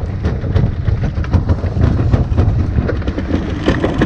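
Boat engine running steadily with a low rumble, with wind buffeting the microphone.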